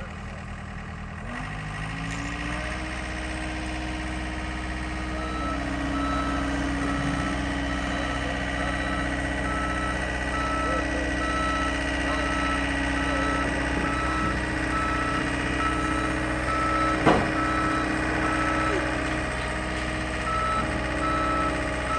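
John Deere 325G skid steer's diesel engine running, revving up about a second in and then holding at a steady higher speed, with a backup alarm beeping at an even pace from about a quarter of the way through. A single metallic clank sounds near the three-quarter mark.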